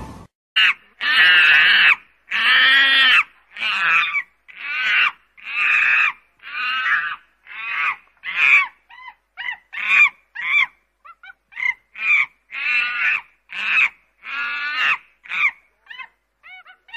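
A monkey calling over and over: a long series of loud, harsh calls, about one a second at first, then shorter and quicker from about eight seconds in.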